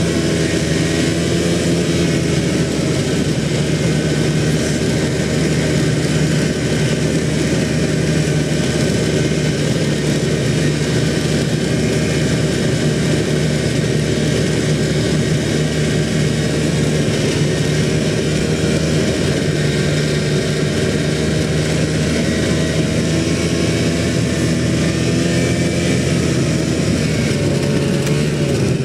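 Snowmobile engine running steadily while the sled is ridden over snow, heard from the rider's seat; its pitch dips slightly near the end.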